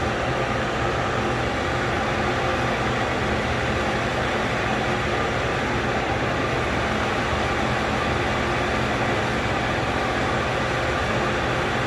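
Steady mechanical drone of running machinery, an even rushing noise with faint steady tones, unchanging throughout.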